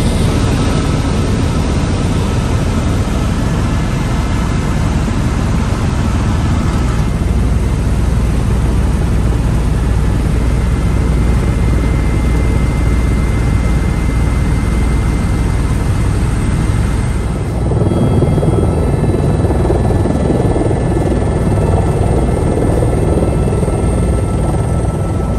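Tour helicopter's rotor and turbine noise heard from inside the cabin in flight, loud and steady. About two-thirds of the way through the sound turns rougher and lower.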